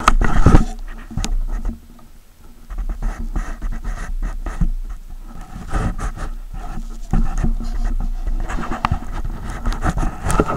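Scratchy rustling and irregular soft knocks from a handheld camera being carried, over a steady low rumble, with a loud bump in the first half second.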